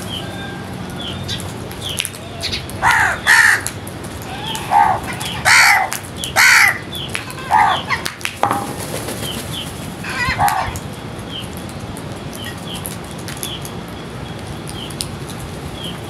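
House crows cawing: a run of about eight harsh caws, the loudest between three and seven seconds in, then the calls trail off after about ten seconds.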